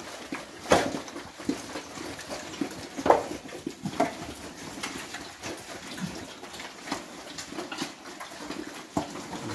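Several fattening pigs grunting and snuffling as they feed, with scattered sharp knocks at irregular intervals.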